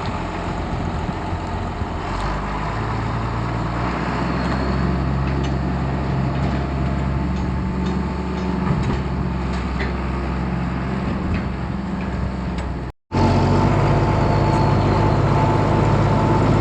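Farm tractor's diesel engine running steadily. It cuts out for a moment about 13 seconds in and comes back a little louder.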